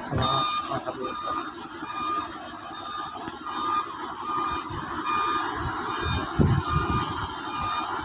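Machine warning beeper, the kind of backup or travel alarm fitted to heavy equipment, sounding a single high tone over and over at a steady pace. Site machinery runs underneath, and a few low thumps come near the end.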